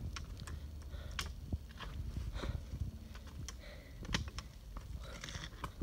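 A hiker's footsteps over rocky trail, with irregular sharp clicks and taps on stone over a low rumble on the microphone.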